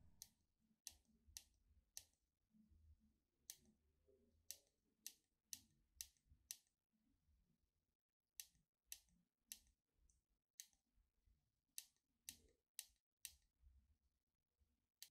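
Faint clicks of the button on an APA VF016 bicycle computer being pressed about eighteen times in irregular runs, with a pause of nearly two seconds midway. The presses step the wheel-circumference setting up to 0957 mm.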